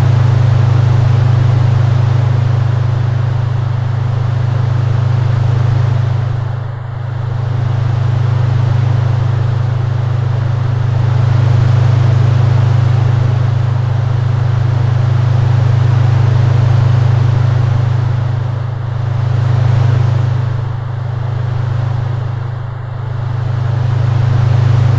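Ambient electronic drone: a deep, steady hum under a wash of hiss that swells and fades slowly every few seconds.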